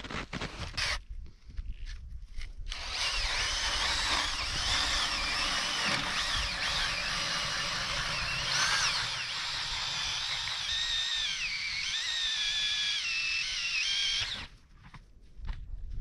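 Power ice auger boring a hole through pond ice. The motor starts about three seconds in and runs for roughly eleven seconds, its whine wavering up and down in pitch as the blade bites, then cuts off suddenly near the end.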